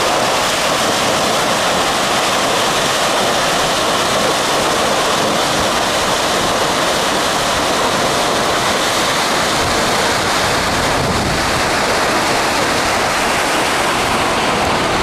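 A large waterfall plunging onto granite boulders: a loud, steady rush of falling water.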